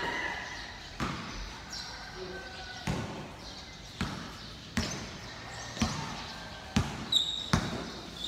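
A basketball bouncing on a hard court as it is dribbled, a sharp knock roughly once a second, with a few quicker bounces near the end.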